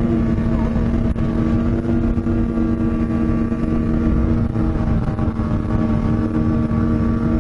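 Snowmobile engine running steadily at cruising speed, a constant drone that holds one pitch with no revving, over a dense rushing noise of wind and track.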